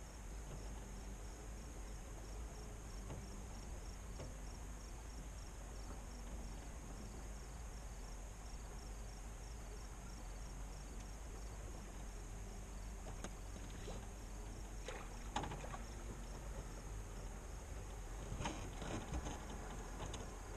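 Quiet outdoor ambience: crickets chirping in a steady pulse of a few chirps a second over a low steady rumble. A few sharp knocks and clicks come in the second half, one louder knock past the middle and a cluster near the end.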